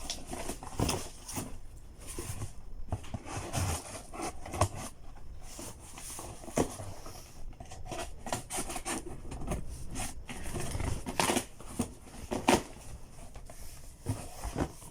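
A cardboard delivery box and its packaging being opened and handled by hand: a run of irregular scrapes, clicks and crinkling, with a few sharper knocks about 11 and 12.5 seconds in.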